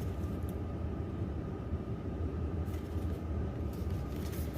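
Steady low background rumble with a faint thin hum, and a few soft rustles of Pokémon trading cards being flipped through by hand.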